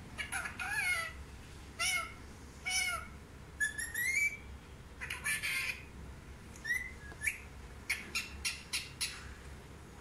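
Indian ringneck parakeet calling in a string of short squawks and chirps, several bending up and down in pitch, with a longer rising call about four seconds in and a quicker run of short sharp notes near the end.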